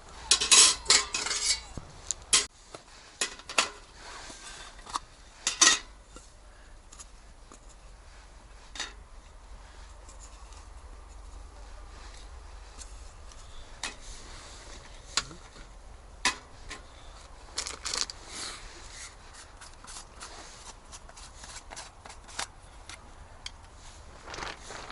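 Scattered clinks and knocks of objects being handled: a burst of loud ones at the start, a sharp one near six seconds in, then sparse light taps.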